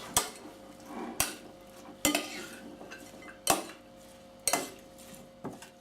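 A utensil clinking against a mixing bowl as a salad is stirred and tossed, a sharp knock about once a second.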